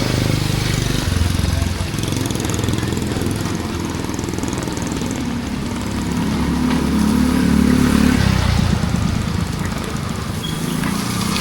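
Motor vehicle engines running close by on a street in heavy rain, one growing louder and higher from about six seconds in and dropping away around eight seconds, over a steady hiss of rain.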